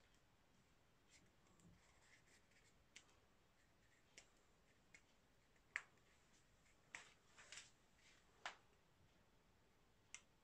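About nine faint, sharp clicks at uneven intervals against near silence, the loudest about six seconds in and a small cluster around seven to eight seconds.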